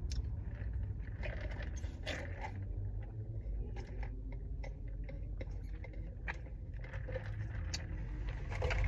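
Sipping a fountain drink through a plastic straw from a paper cup, with small scattered clicks and scrapes of the cup and lid and a rustle of the paper bag near the end, over the low steady hum inside the car.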